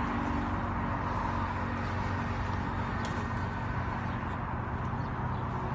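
Steady outdoor noise with a low engine hum running underneath and a few faint clicks.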